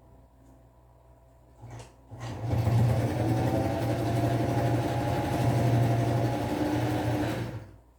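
Electric sewing machine running steadily, stitching for about five seconds, then stopping.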